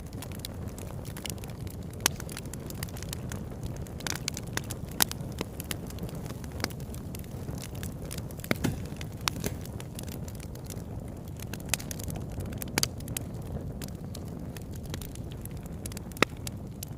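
Campfire burning: frequent sharp pops and crackles at irregular intervals, over a steady low rushing noise.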